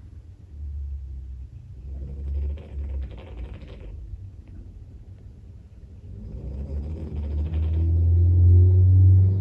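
Boston terrier snoring in deep sleep: low snores in separate pulses, some with a breathy hiss. From about six seconds a car passing outside builds up, its engine and muffler growing to the loudest sound near the end.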